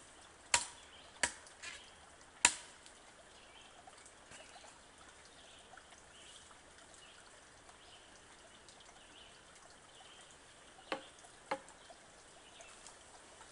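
Sharp knocks from hands working at a wooden plank bench: four within the first two and a half seconds, then two more about half a second apart near the end.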